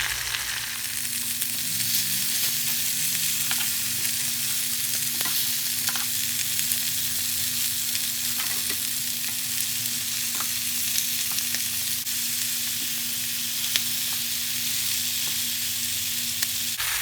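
Seasoned chicken pieces frying in grapeseed oil in a pan over medium-high heat: a steady sizzle with scattered faint pops. A steady low hum runs underneath and stops near the end.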